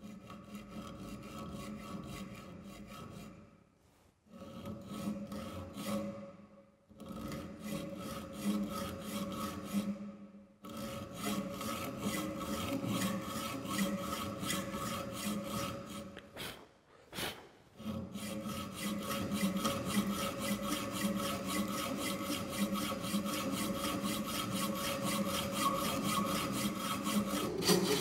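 Hand hacksaw cutting a steel L-profile held in a bench vise, rasping back and forth at the start of a 45-degree cut, with a few brief pauses between runs of strokes.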